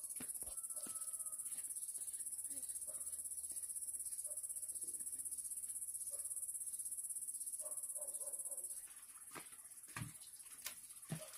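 Insects shrilling in a steady, high-pitched chorus that drops in level about nine seconds in, with scattered knocks and clicks.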